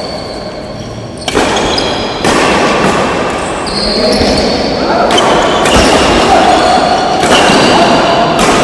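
Badminton rally sounds in a large indoor hall: racket strikes popping on the shuttlecock over arena crowd noise, the sound changing abruptly several times.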